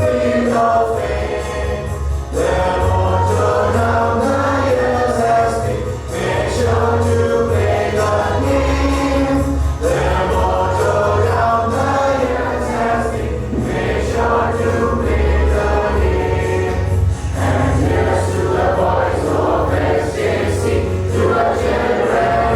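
Music: a choir singing with accompaniment, steady throughout.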